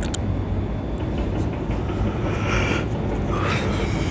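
Steady low rumble of heavy machinery with a droning hum, and two brief higher hissing sounds in the second half.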